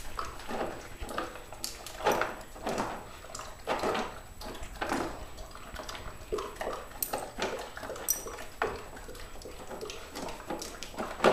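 Blue Weimaraner eating water-soaked dry dog food from a bowl: irregular wet slurps, laps and chewing smacks, several a second.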